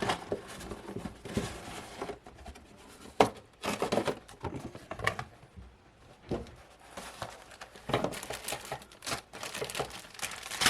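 Plastic parts bags of a model car kit crinkling and rustling as the parts are handled, with irregular clicks and one sharp click about three seconds in.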